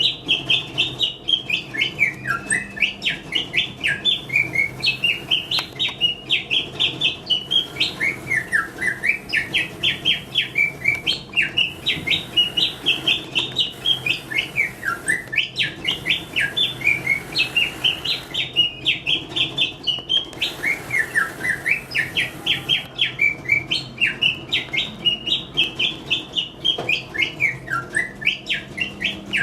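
Mechanical singing-bird automaton whistling a rapid, warbling song of chirps and pitch glides. The same phrase comes round again about every six seconds.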